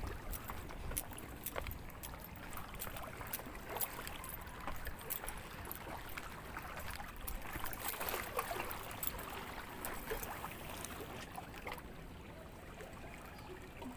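Faint water sloshing and lapping against shoreline rocks, with scattered light clicks.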